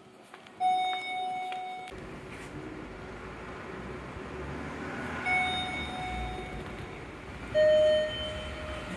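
Three electronic chime tones at a train station, each held for about a second, the last one lower in pitch than the others. A low steady rumble sets in about two seconds in and carries on under them.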